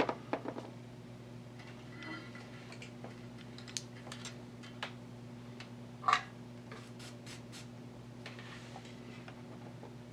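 Scattered light clicks and taps of small hand tools and parts on a circuit board during fuse-holder installation and soldering, the sharpest about six seconds in and a quick run of clicks just after, over a steady low electrical hum.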